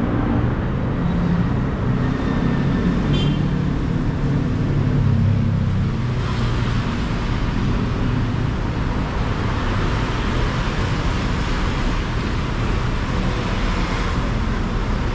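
Steady city road traffic: car and bus engines and tyres running continuously. A low engine drone stands out over the first half, and there is a brief high squeak about three seconds in.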